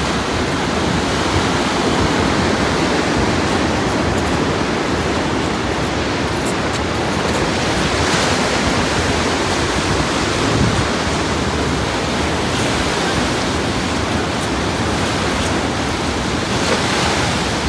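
Steady rush of ocean surf breaking on the reef and seawall and washing up the beach, with some wind on the microphone.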